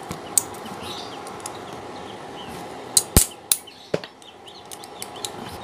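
An 8 mm combination wrench working a tight bolt loose on an electric fan motor's housing: a few sharp metallic clicks and clanks, the loudest about three seconds in.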